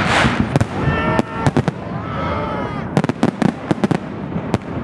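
Aerial fireworks display: a rapid run of sharp bangs and cracks from bursting shells, coming in two clusters with a last single bang near the end.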